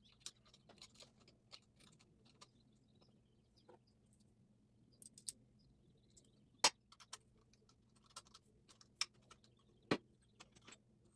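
Scattered small clicks and taps of hands handling the metal parts around a vintage Singer sewing machine's needle and presser foot, with two sharper clicks in the second half, over a faint low hum.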